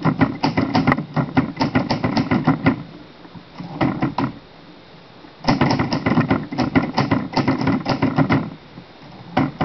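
Hermes 3000 portable manual typewriter being typed on: quick runs of key strikes, broken by a pause of about two seconds in the middle.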